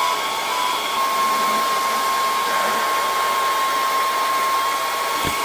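Longer B1 30W diode laser engraver running a job: a steady hiss of air from its air-assist nozzle, with a thin high whine from the machine that stutters for about the first second, then holds steady.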